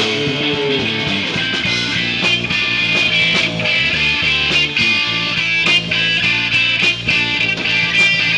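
Live rock band playing, with electric guitars and drums keeping a steady beat.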